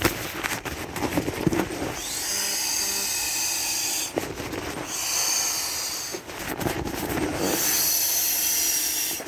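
Air rushing from the hand-squeezed rubber inflation bag into a black rubber Canadian Forces pneumatic air mattress, in three long pushes of one to two seconds each. The first two seconds hold rubbery rustling and clicks as the bag is handled.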